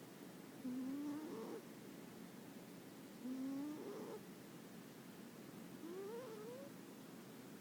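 Scottish Fold cat snoring in its sleep: three pitched snores about two and a half seconds apart, each rising in pitch over most of a second.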